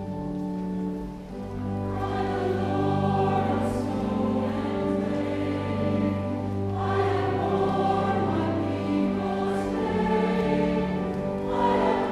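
Church choir singing a communion hymn, with sung voices coming in about two seconds in over steady, held low accompaniment notes.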